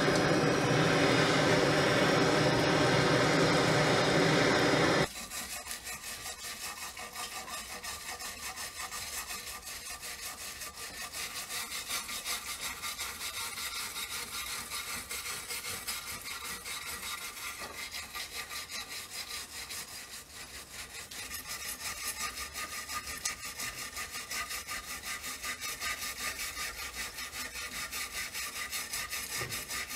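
A loud, steady noise, like a running power tool, cuts off suddenly about five seconds in. It is followed by quick, even back-and-forth strokes of a hand tool rubbing on the workpiece, like hand sanding or filing, which carry on steadily.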